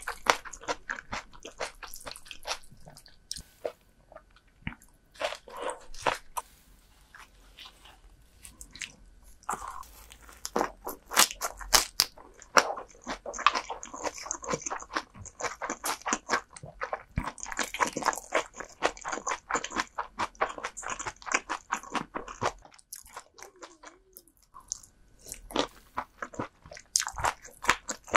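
Close-miked eating sounds: a person biting and chewing crisp, crunchy food in rapid runs of sharp crunches. The crunching is softer for a few seconds after the start, fullest through the middle, and stops briefly near the end before it resumes.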